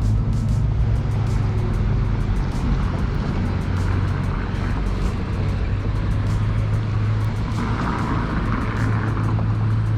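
City street traffic: a vehicle's engine running with a steady low hum, with music playing in the background.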